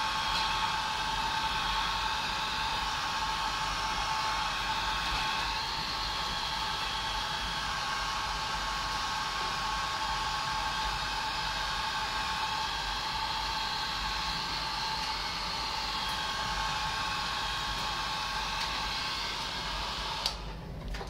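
Handheld hair dryer running steadily, a rush of air with a steady whine. It drops away briefly near the end.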